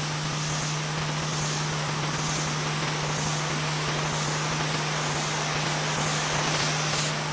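Pressure washer running steadily on a driveway, its motor giving a constant low drone under the hiss of the water spray. The spray hiss swells and fades about once a second.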